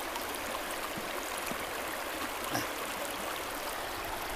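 Steady rushing of a flowing stream, with one small knock about two and a half seconds in.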